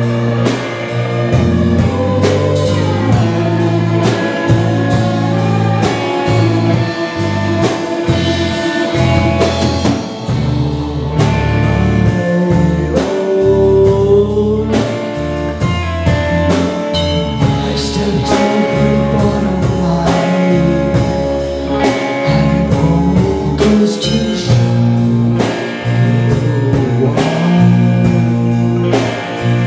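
Live rock band playing: distorted electric guitars over a drum kit, with a woman singing lead into a microphone.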